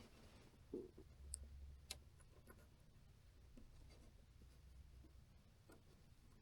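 Near silence: a few faint, scattered small clicks from hands handling small parts, over a low steady hum.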